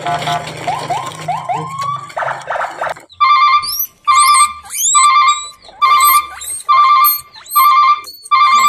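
A loud, ringtone-like electronic trill repeating about one and a half times a second from about three seconds in, with high chirps over it. Before it there are a few seconds of busier sound with a low hum and short rising glides.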